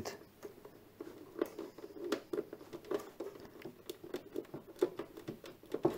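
Irregular small clicks and scrapes of a wire's spade connector being worked onto the terminal of a UPS's sealed lead-acid battery, a few of the clicks sharper than the rest.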